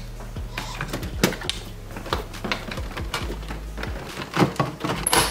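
A plastic pry tool working the long dashboard trim strip of a BMW E90 loose: irregular clicks and snaps as the trim's clips give way, loudest about a second in and again past four seconds, over a steady low hum.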